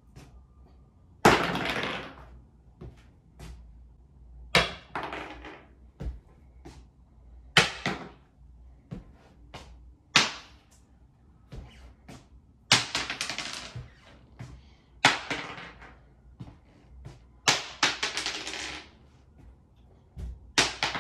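Small hard objects, such as pebbles, dropped or tossed one at a time onto a wooden floor. Each lands with a sharp clatter and skitters for about a second, eight times at roughly even intervals.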